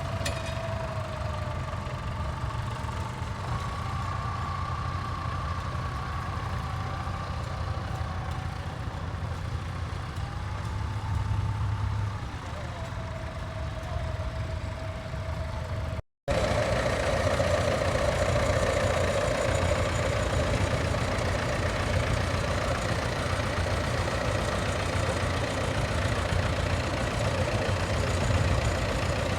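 Tractor engines running at low revs, their pitch drifting up and down a little. The sound cuts off sharply about halfway through, then another steady engine sound carries on.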